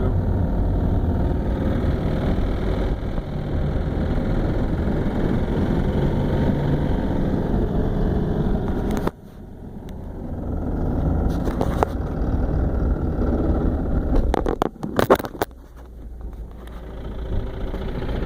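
Engine running with a serious rod knock, the sign of oil starvation from a failed oil pump or oil pickup tube: the pan is full, yet oil pressure reads nearly zero. The sound drops off suddenly about nine seconds in, then builds again, with a burst of sharp clatters about fifteen seconds in.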